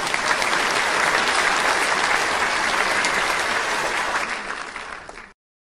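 Audience applauding in a concert hall. The applause fades out near the end and then cuts off.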